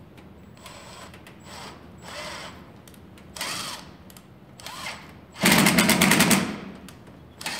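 Cordless drill run in several short trigger bursts, its motor whining up and down, then a louder run of about a second, full of rapid chattering clicks, about five and a half seconds in. It is making holes and fastening into thin aluminum fascia.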